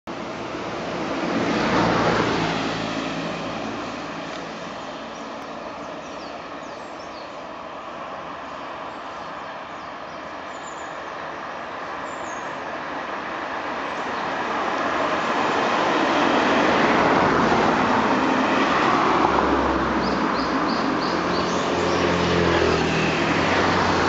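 Road traffic noise, with a vehicle passing about two seconds in. From about halfway a JR 209 series 3000 electric train approaches, its running noise growing louder and staying loud to the end. No warning horn is heard over the noise.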